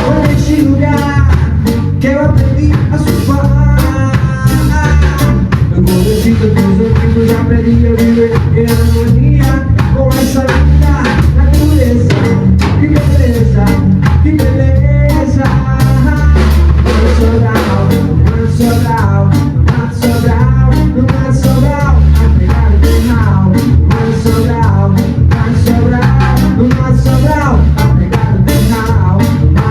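Band music with a drum kit keeping a steady beat under melodic instruments.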